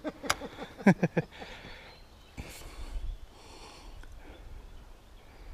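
Fishing rod and reel handled during a cast: a few sharp clicks in the first second or so, a brief rush about two and a half seconds in, then a short hiss.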